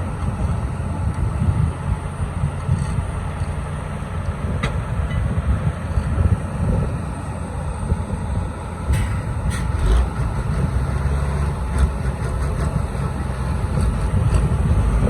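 A heavy engine running steadily with a low rumble, with a few short clicks and knocks over it.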